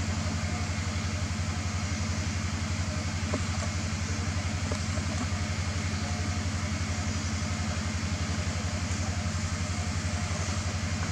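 An engine idling steadily: a low, even drone with a fast regular pulse.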